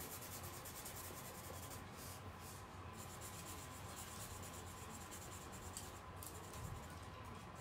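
Faint, steady scratching of a drawing tool colouring in on paper.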